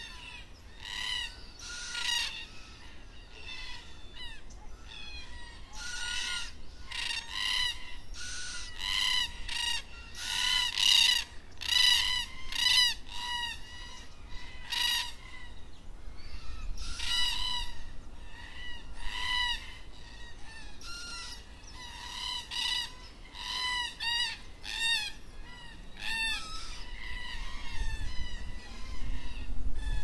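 Black cockatoo calling: a long series of short, harsh, wavering calls repeated about once a second, some in quick pairs, with a low rumble near the end.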